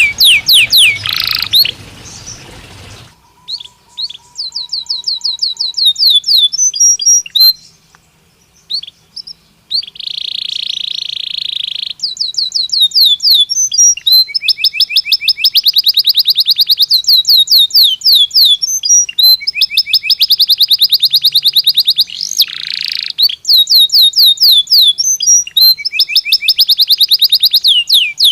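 A domestic canary of the Belgian type singing a long song made of fast trills, each a rapid series of repeated notes at a different speed, with one rolling, even trill about ten seconds in. The song breaks off for a few seconds twice in the first third, then runs on almost without a pause.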